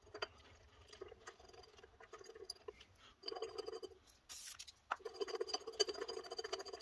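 Faint metal clicks and scraping as bolts and the forcing screw of a flange puller are threaded by hand into an engine's harmonic balancer, with a brief rustle and a sharp click near the middle.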